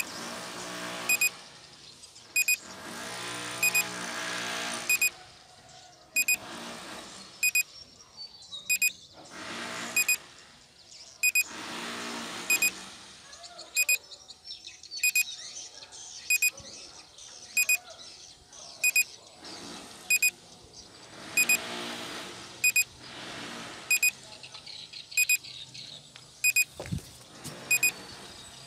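Repeating electronic beeps from a drone controller or flight app during an autonomous waypoint flight. Each is a short high double pip, about one every 1.2 seconds. Behind them, background noise swells and fades.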